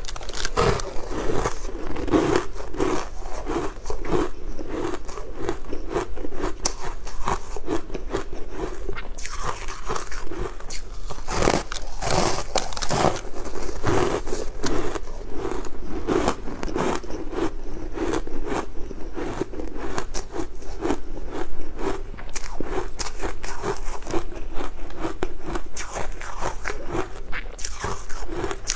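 Close-miked biting and chewing of crumb-coated sweet cake pieces: a constant fine crackle and crunch over a soft, rhythmic chew, with a few louder crackling spells about midway.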